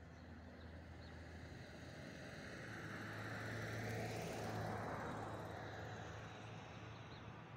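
A vehicle passing: road noise swells to a peak about halfway through, then fades away.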